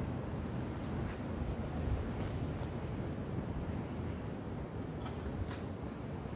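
Crickets trilling steadily in a high-pitched drone, over a low rumble, with a couple of faint clicks in the second half.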